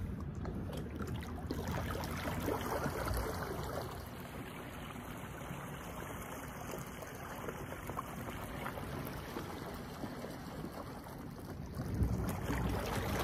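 Water sloshing and trickling as a pedal-drive fishing kayak moves off through the water and later passes close by again; the water noise is louder near the start and swells again near the end as the hull and its wake come near.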